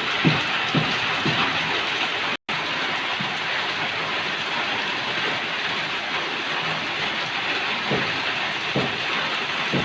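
Heavy rain falling steadily, with dull knocks of drops now and then near the start and the end. The sound cuts out completely for a split second about two and a half seconds in.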